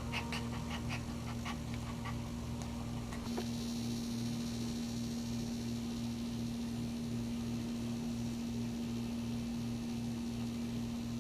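A dog in labour panting in a steady rhythm, over a constant low hum, with a few small clicks in the first few seconds.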